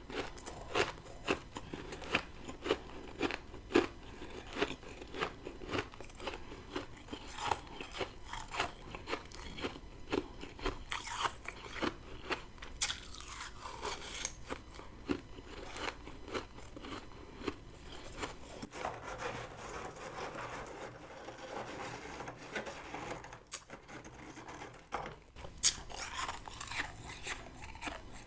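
A person biting and chewing freezer frost: a fast run of crisp, sharp crunches that thins into softer chewing for several seconds about two-thirds through, then turns crunchy again near the end.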